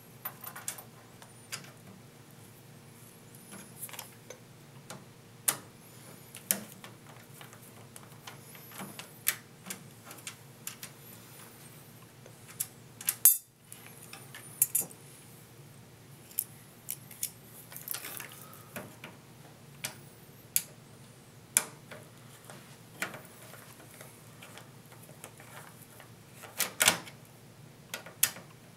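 Scattered sharp clicks and light metallic clinks of a screwdriver and small screws while a case fan is unscrewed and taken out of a computer case, with a brief dead gap about halfway through.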